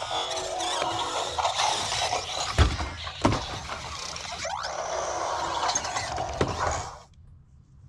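Robosen Optimus Prime robot toy auto-converting on voice command: its servos whir and its speaker plays the transforming sound effect, with a couple of sharp clunks about two and a half and three seconds in. It stops suddenly about seven seconds in.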